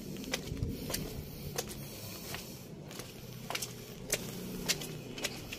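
Footsteps climbing granite stairs, a sharp click with each step, about one to two a second.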